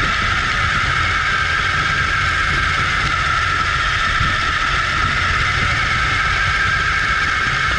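Electric RC buggy's motor and gear train whining steadily at a constant speed, with the rumble of its tyres rolling on asphalt underneath, heard from a camera mounted on the car itself.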